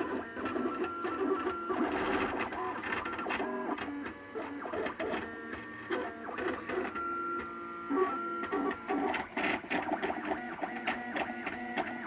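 MakerBot Thing-O-Matic 3D printer's stepper motors running as the print head and platform move, making steady tones that keep jumping to new pitches with each change of move.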